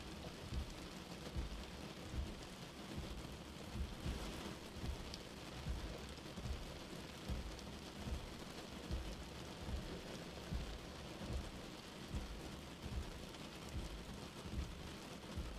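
Steady rain on a car windshield with the wipers sweeping slowly, a soft low thump at each stroke about every 0.8 seconds.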